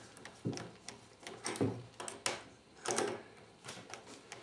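Small metal clicks and knocks from a spanner on the nut of a 3 mm screw being tightened through a fin blade and rubber foot pocket, with a few louder knocks among light irregular clicking.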